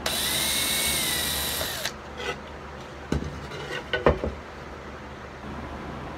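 Cordless drill boring a pilot hole for a nail in thin 3/8-inch pallet wood for about two seconds, its whine rising as it speeds up and sagging slightly before it stops. After that come a few sharp knocks as the drill and the piece are handled.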